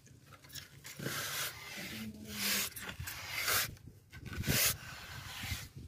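Scraping and rubbing strokes over a plastered concrete surface, coming about once a second, typical of finishing work on fresh plaster.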